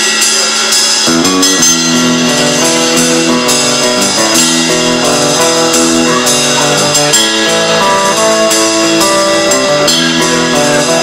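Live rockabilly instrumental: hollow-body electric guitar, upright double bass and drum kit playing together, with lower bass notes filling in about a second in.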